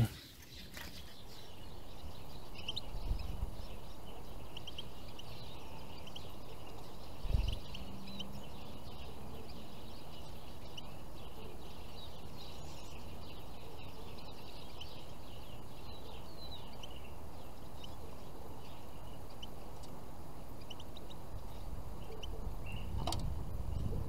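Small finches chirping, with many short high calls scattered over a steady low background noise; a single dull thump about seven seconds in.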